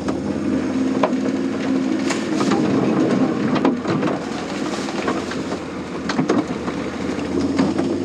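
A paintball tank's motor running steadily as it drives, with its plywood body rattling and clattering constantly and a few sharper knocks.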